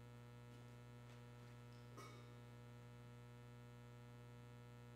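Near silence: a steady low electrical mains hum, with one faint click about two seconds in.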